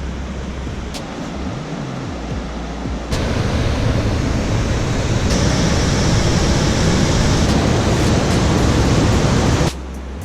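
Steady roar of a waterfall, cutting in suddenly and much louder about three seconds in and cutting off just as suddenly near the end. Around it, quieter water noise under background music with a low bass line.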